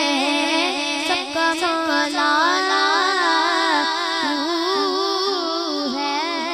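A young girl singing a hamd (an Urdu hymn praising God) into a microphone, holding a long melodic line whose pitch bends and wavers in ornaments.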